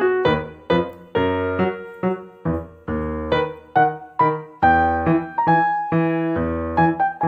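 Piano music: notes and chords struck one after another over low bass notes, each ringing and fading before the next.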